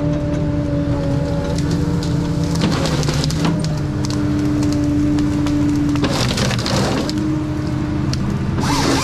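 Ponsse Scorpion King forest harvester working: the engine and hydraulics run with a steady whine that steps up and down in pitch. Bursts of cracking and splintering wood come about three seconds in, again about six seconds in, and near the end, as the harvester head works a tree.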